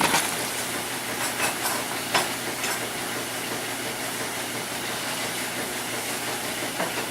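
Steady hissing background noise, like a running fan, with a few light taps and clicks in the first three seconds and another near the end.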